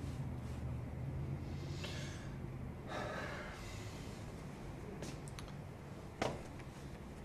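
A person sighing and breathing over a low, steady room hum, with a single sharp click about six seconds in.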